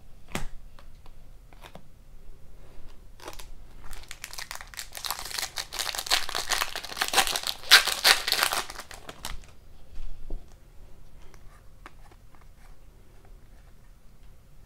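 Foil wrapper of a hockey card pack being torn open and crinkled by hand: a dense crackle for about five seconds, starting a few seconds in. Scattered light clicks come before and after it.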